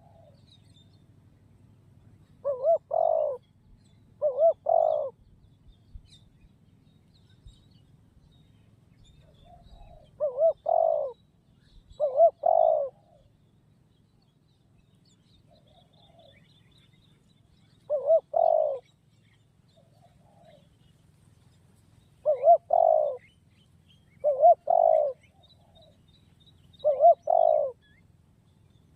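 Spotted dove (tekukur) cooing its repeated 'kuk' call: about eight short coo phrases, mostly in pairs a second or two apart, separated by longer pauses. A faint low hum runs underneath.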